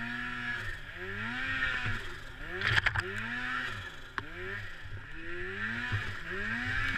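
Polaris Pro RMK snowmobile's two-stroke engine revving up and down about once a second as the sled is ridden through deep snow. There are a couple of sharp knocks about three and four seconds in.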